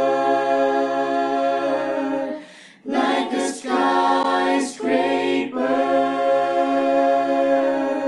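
A cappella choir singing held chords with no words, a long sustained chord at the start, a short break about two and a half seconds in, moving chords, then another long held chord near the end.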